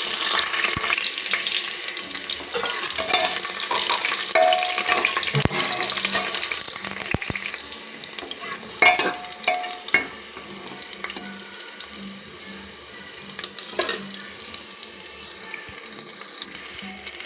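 Green chillies and fenugreek seeds sizzling and crackling in hot oil in a pressure cooker, stirred with a spoon that knocks against the metal now and then. The sizzle is loudest at first and dies down about ten seconds in.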